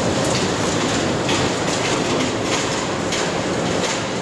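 Busy railway station ambience: a steady rumble and hiss of trains at the platforms, with a faint steady tone and scattered faint clicks.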